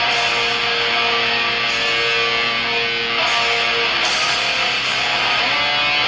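Metalcore song playing, with loud distorted electric guitars holding sustained notes over a dense, steady backing.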